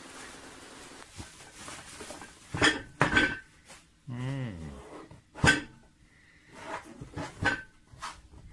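Hands unwrapping a small cardboard box from bubble wrap and packing tape: plastic rustling at first, then a handful of sharp clicks and knocks as the box is handled and set down.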